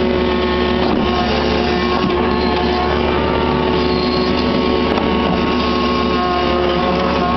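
Kubota KX61-3 mini excavator's three-cylinder diesel engine running steadily under hydraulic load as the machine swings round, heard from the cab.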